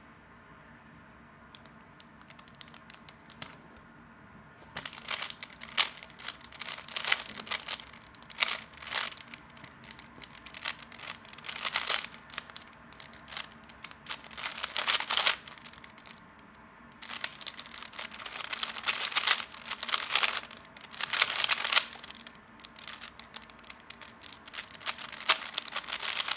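A 3x3 Rubik's Cube turned fast in a timed speedsolve: rapid plastic clicking and clacking in bursts, starting about four seconds in, with short pauses between bursts.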